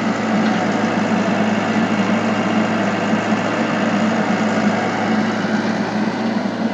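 Excavator's diesel engine running steadily with a low, even drone.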